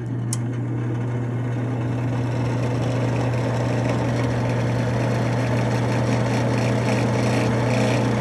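Double wall oven's convection fan motor running on bake: a steady electrical hum under a coarse whirring noise that builds a little over the first few seconds. The fan is noisy from rough bearings, which the owner says need replacing.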